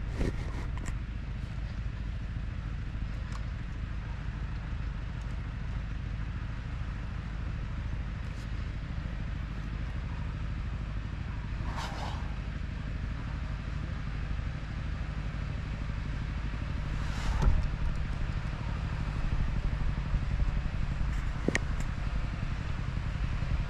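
Steady low wind rumble on the microphone, with one sharp pop about three-quarters of the way through.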